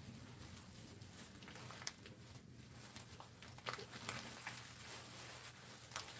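Faint handling sounds of gimbap being rolled with a bamboo mat by plastic-gloved hands on a wooden board, with a few light clicks over a low steady hum.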